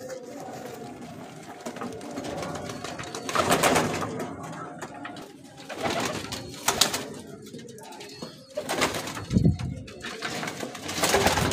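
Domestic pigeons cooing in a loft, with three short rustling bursts, about 3.5, 7 and 9 seconds in, from a bird being handled and set on a perch.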